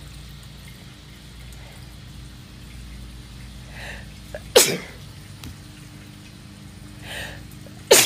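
A woman sneezing twice, about three seconds apart, each sneeze preceded by a short in-breath. The sneezes are sun-triggered, a photic sneeze reflex set off by looking into sunlight.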